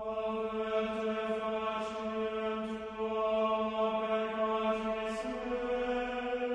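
A chanting voice holding one long, steady low note, stepping slightly higher about five seconds in.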